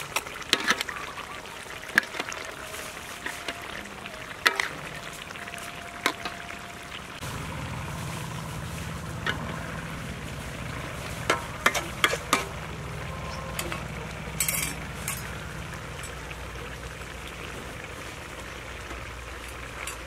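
A metal ladle clinks and scrapes against a steel wok of simmering fish broth, with liquid poured into the pan; a steady low rumble sets in about seven seconds in.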